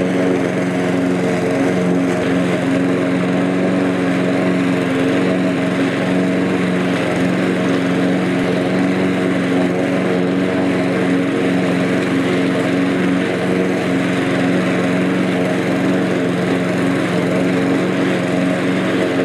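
Cobra MX534SPH petrol rotary mower's Honda engine running steadily under load while the mower cuts grass in side-discharge mode, holding its speed as it powers through the grass.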